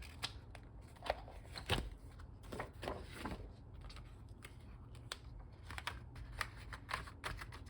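Faint handling of planner pages and covers: scattered small clicks, snaps and paper rustles as a sheet is fitted into a disc-bound Happy Planner, with a slightly louder click about two seconds in.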